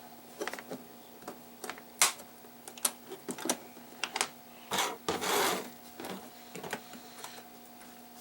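Irregular plastic clicks and snaps as a small pry tool levers the lens diffusers off a TV's LED backlight strip, with a short scrape about five seconds in. A faint steady hum runs underneath.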